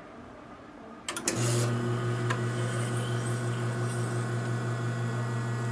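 Rocket espresso machine's pump switched on with a click about a second in, then humming steadily as it starts the pre-infusion for an espresso shot.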